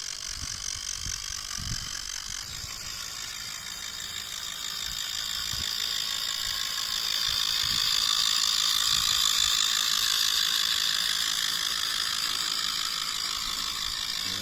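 RC logging truck's electric motor and gearbox whining steadily at a high pitch. It grows louder about halfway through and then eases slightly, with faint low knocks underneath.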